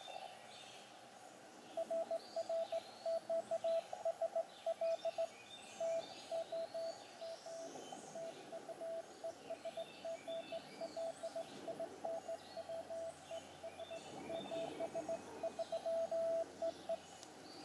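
Morse code (CW) received on an Elecraft KX2 transceiver: a single steady tone keyed on and off in dots and dashes, starting about two seconds in. It is hand-sent on a straight key by the other station, spelling out its sign-off 'RR QSL TOM TU ES GL … 73'. Birds chirp faintly in the background.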